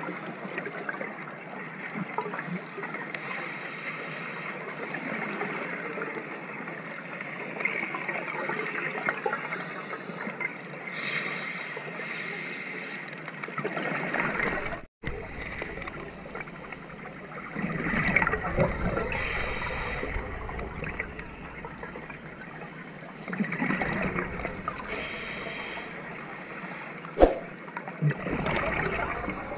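Underwater scuba breathing through a regulator: a hiss on each breath in, every several seconds, and exhaled bubbles gurgling and rumbling out, over a continuous crackly water background. A single knock near the end.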